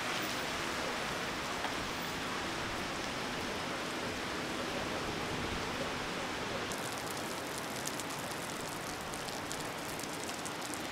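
Heavy typhoon rain falling steadily as an even hiss; from about two-thirds of the way through, a crisper patter of drops striking close by joins in.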